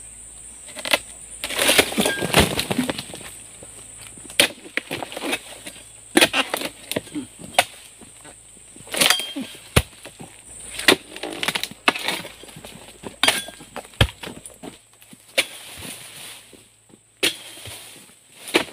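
Irregular sharp cracks and chops of an oil palm harvester's long-poled sickle cutting through palm fronds and bunch stalks, with a longer rustling crash about two seconds in. A steady high insect drone runs behind until near the end.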